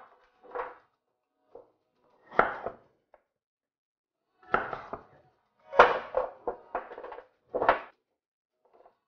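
Kitchen knocks from preparing butternut squash: a chef's knife cutting through slices onto a wooden cutting board, and slices set down on a metal baking sheet, as a string of irregular knocks with short gaps between them.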